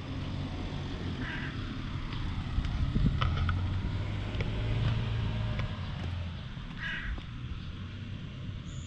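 A motor vehicle's low engine hum that swells in the middle and fades away again, as in a vehicle passing. Two short calls come through over it, one about a second in and one near seven seconds.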